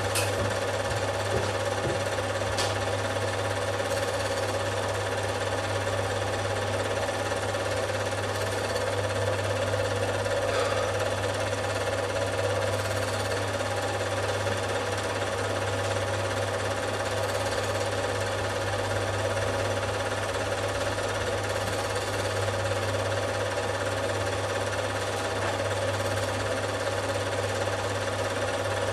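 Film projector running steadily, the even mechanical clatter of its shutter and film transport. There is a single click at the very start.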